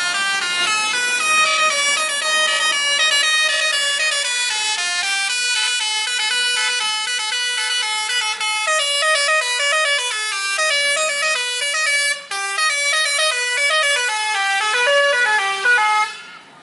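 Bus telolet horn playing a fast tune of held notes that jump from pitch to pitch, several tones sounding together. It breaks off briefly about twelve seconds in and stops abruptly near the end.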